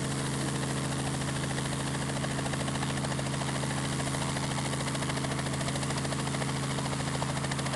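Robinson R44 helicopter running steadily: a constant drone of unchanging pitch from its engine and rotor, with a fast, even pulse.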